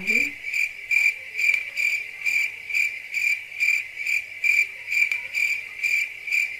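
Cricket chirping: an even run of short, high-pitched chirps, about two and a half a second, the classic awkward-silence cricket sound.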